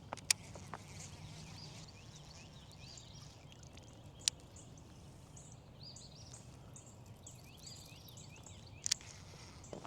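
Birds chirping and calling, many short quick notes overlapping, over a faint low steady hum, with three sharp clicks, about a quarter of a second, four seconds and nine seconds in.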